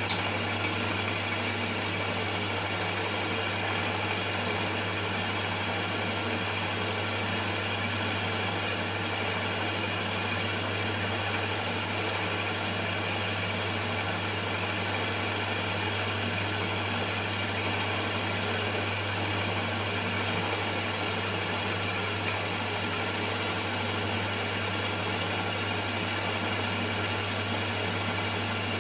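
Milling machine spindle running steadily at speed with a wiggler edge finder in it, not cutting; a steady motor hum with one sharp click just after the start.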